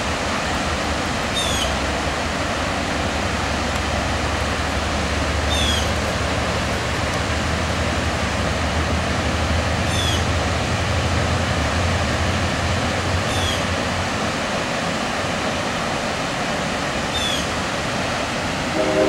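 Freight train of loaded hopper cars rolling across a high steel trestle bridge, a low rumble under a steady rushing noise. A short, high, falling chirp repeats about every four seconds.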